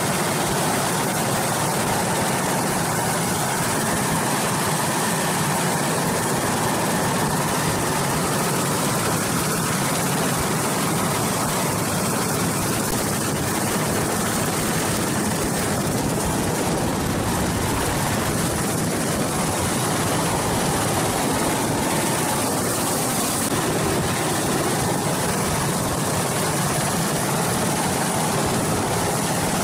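Super Puma helicopter's twin turbine engines and main rotor running steadily at a hover, heard from inside the cabin at the open hoist door.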